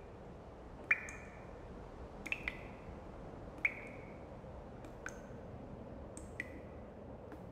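Water dripping: about eight sharp plinks at uneven intervals, each with a short ringing tail, over a steady hiss.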